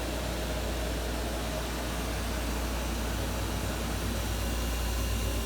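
Steady low drone of machinery running in a boat's engine room, with an even hiss over it.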